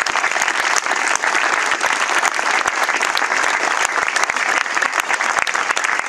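A crowd applauding, many hands clapping steadily without a break.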